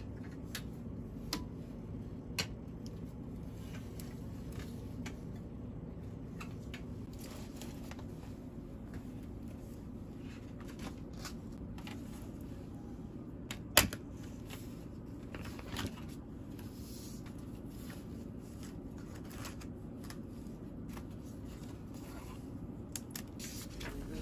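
Desk stationery being handled: a plastic folder and paper sliding, pens and a ruler set down, making scattered light clicks and taps, with one sharp click about fourteen seconds in. A steady low hum runs underneath.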